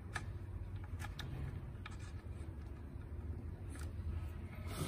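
A few faint clicks and handling noises from test leads and analogue meter terminals being worked by hand, over a steady low hum.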